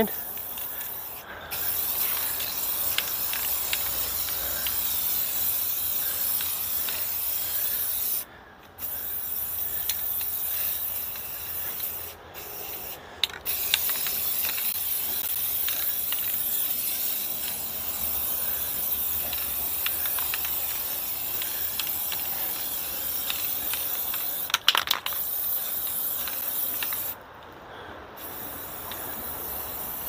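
Aerosol spray paint can hissing in long bursts as paint is sprayed, stopping briefly about eight seconds in, twice around twelve to thirteen seconds, and for about a second near the end.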